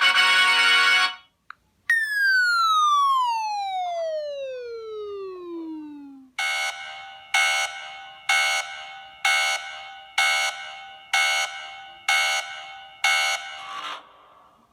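A string of electronic sound effects: a harsh buzzing tone that stops about a second in, then a long falling whistle that slides steadily down in pitch for about four seconds, then eight chime-like alarm tones, each struck sharply and fading, about one a second.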